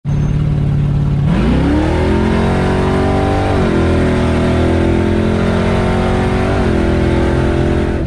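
Classic car engine heard from inside the cabin, pulling hard from a steady speed: the pitch climbs, drops sharply as it shifts up a gear about three and a half seconds in, climbs again, and drops with a second upshift near the end.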